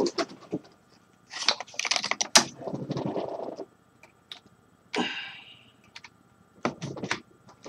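Clicks, taps and rustling from hands handling a mouse cable and plugging it into a laptop, coming in irregular bursts with pauses, and a short scraping rattle about five seconds in.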